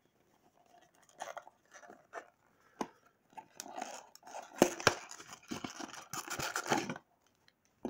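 A small cardboard puzzle-cube box being handled and opened: paper scraping and rustling with sharp clicks and taps, busiest in the second half and stopping about seven seconds in.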